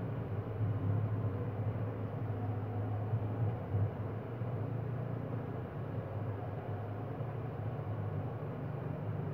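A steady low hum over a faint even background noise.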